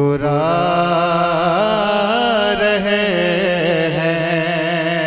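A man singing a naat, an Urdu devotional song in praise of the Prophet, into a microphone. He holds one long note through the whole stretch, bending it in wavering melodic ornaments.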